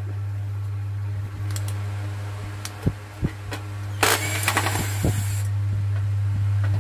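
Cordless drill-driver running in one burst of about a second and a half, beginning about four seconds in, taking out screws on an exhaust fan's motor. Before it come two sharp knocks, and a steady low hum runs underneath.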